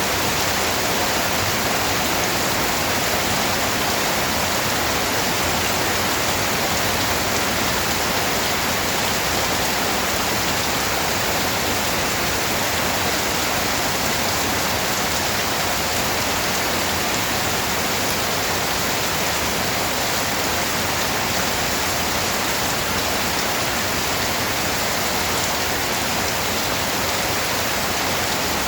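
Steady, even rain falling, a dense constant hiss of drops without any break or change.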